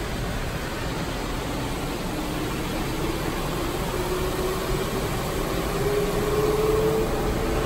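Automatic tunnel car wash heard from inside the car: a steady hiss of foam and rinse water spraying onto the windshield and body. A faint machine whine rises slowly in pitch through the second half as the sound grows a little louder.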